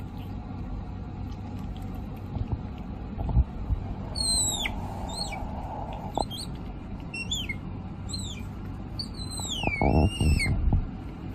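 Otter giving a series of high, squeaky chirps, each sliding downward in pitch, about six calls with the last one longer and wavering. A few soft thumps and rustles of handling come near the end.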